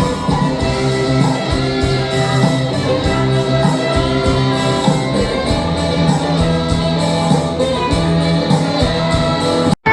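Orchestra with a band section playing: held string and wind notes over bass, guitar and percussion. The sound cuts out for an instant near the end.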